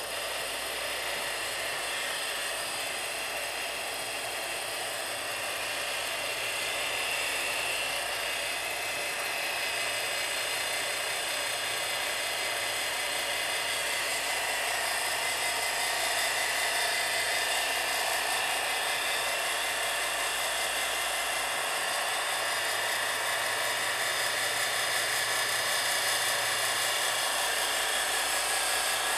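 Steady mechanical whirring with hiss, unchanging throughout.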